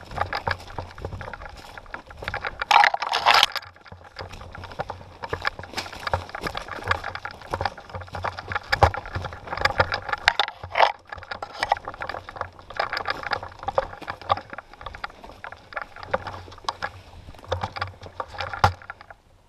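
Rustling, crackling and crunching of a person moving through dry leaf litter and brush, with knocking and rattling handling noise from a GoPro mounted on an airsoft gun's barrel. The sound cuts off near the end.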